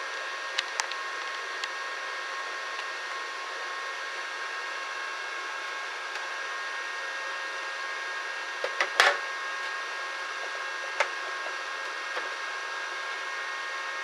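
Steady whirring hum with a faint whine from the Parkside flux-core welder's cooling fan. Over it come a few sharp plastic clicks and knocks as the wire-feed tension knob and arm are handled, the loudest cluster about nine seconds in.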